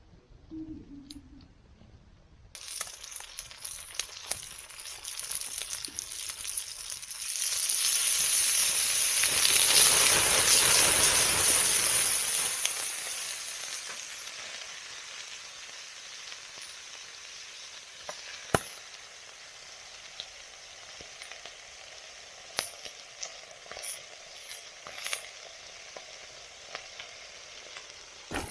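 Food sizzling in a hot pan, starting about two and a half seconds in. The sizzle swells loudest for a few seconds, then settles to a quieter steady sizzle with scattered pops.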